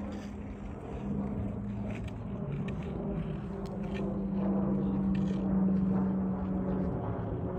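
Motor vehicle engine running with a steady hum, growing a little louder about halfway through.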